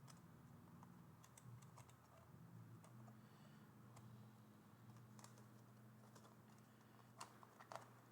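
Faint small clicks and taps of plastic parts being handled and fitted together, a couple slightly louder near the end, over a low steady hum.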